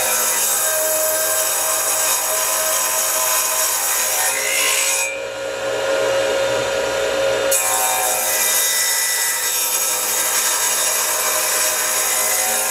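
Small hobby table saw ripping a wooden block: a steady motor whine under loud cutting noise. About five seconds in, the cut ends and the blade spins free for a couple of seconds. Then a second cut begins.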